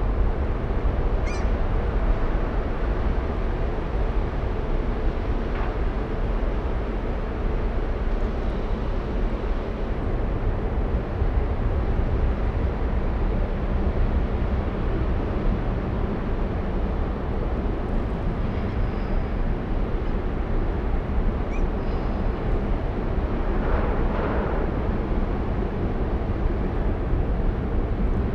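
Passenger ferry Pride of Hull under way close by, its engines and propellers giving a steady low rumble over churning water. A few faint bird chirps come through, and a brief swell of rushing noise comes near the end.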